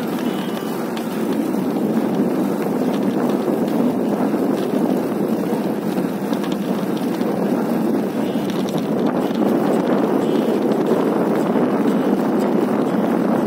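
Steady rushing noise of riding a city bike along a paved path: tyres rolling and wind across the microphone.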